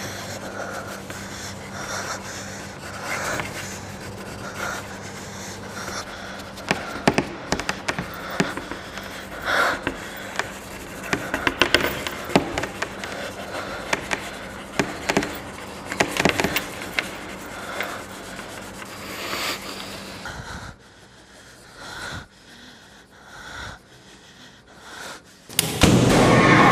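A person breathing heavily and panting close to the microphone, with rubbing and irregular knocks from handling. Near the end, music comes in suddenly and loudly.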